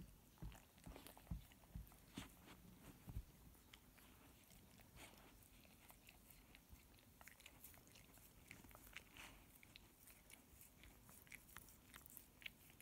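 Faint wet smacking and clicking of a field spaniel licking and nibbling a hairless Sphynx cat's head, with a few low thumps in the first three seconds.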